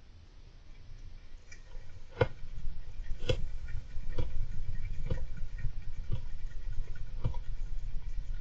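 Golden hamster busy in its cage: a low rumble that builds over the first two seconds, with sharp clicks or knocks coming roughly once a second from about two seconds in.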